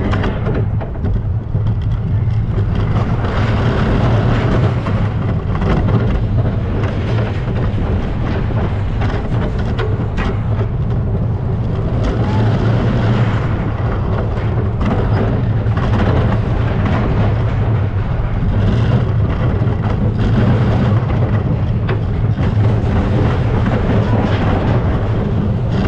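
Steel roller coaster train running along its track: a loud, deep, continuous rumble of the wheels on the steel rails, with rattle and noise rising and falling over it as the train runs through the course.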